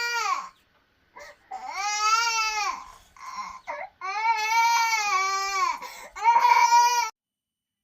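A young child crying in a string of long, high-pitched wails, each rising and then falling, with short catches of breath between them. The crying cuts off abruptly about seven seconds in.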